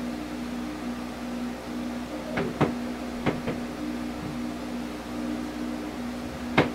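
A steady low mechanical hum with a few sharp clicks: two close together about two and a half seconds in, two more around three and a half seconds, and one near the end.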